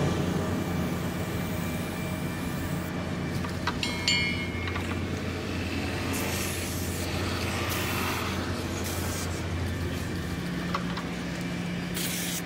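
Toyota forklift engine idling steadily, with an aerosol can hissing in several short spurts as lubricant is sprayed onto the mast chains.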